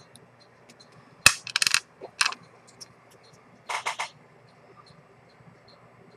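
Handling noise on a watchmaker's bench: a sharp knock about a second in, then short clattering rattles of hard small objects, one around two seconds in and another near four seconds.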